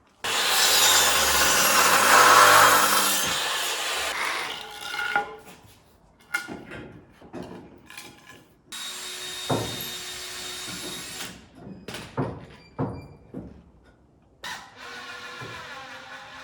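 A power saw cutting wooden boards twice: a cut of about three seconds at the start that winds down, and a second cut of a few seconds about halfway through. Knocks of timber being handled come in between, and a steadier noise comes in near the end.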